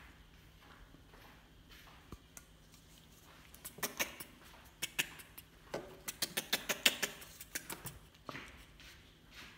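Quick sharp clicks and taps of a baby monkey's hands and mouth on a plastic milk bottle as it grabs at the cap and sucks. The clicks start a few seconds in and come in a busy run for about four seconds.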